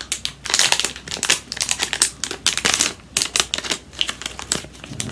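Foil blind-bag wrapper crinkling as it is pulled open by hand: a rapid, irregular run of sharp crackles.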